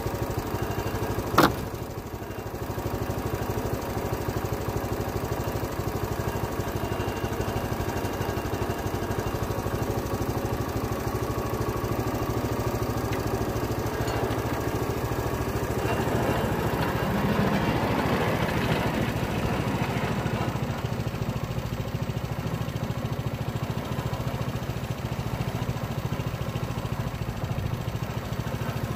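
Small gasoline engine of a Timbery M100 portable bandsaw mill running steadily at idle, with one sharp knock about a second and a half in and a slight rise in level partway through.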